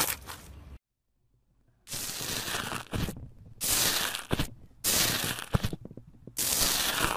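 Hands squishing clear slime briefly, then after a second of silence a metal tool pressed into foamy slime in a plastic tub, about five noisy presses of up to a second each with short gaps between them.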